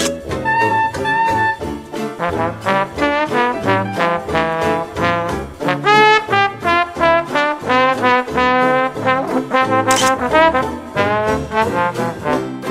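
Background music in a jazz style, with brass instruments carrying the tune over a steady beat and a cymbal-like hit about ten seconds in.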